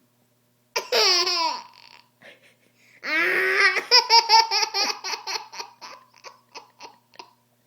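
A baby's high voice: a short vocal sound falling in pitch about a second in, then from about three seconds a long laugh in quick pulses that slow and fade away.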